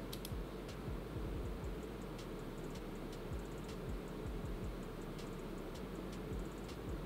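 Gigabyte GeForce RTX 4090 Gaming OC's three cooling fans running under a raised custom fan curve, a steady low whir as they spin up, with light irregular ticks over it.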